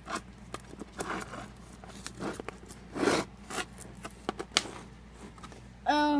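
Metal tape measure being handled against a toy: irregular clicks and scrapes of the blade and fingers on the surface, louder about three seconds in. A short hummed voice sound comes just before the end.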